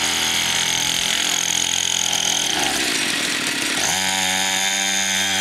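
Small 50cc pocket dirt bike engine running under throttle, dropping off briefly about halfway through, then picking back up to a steady pitch.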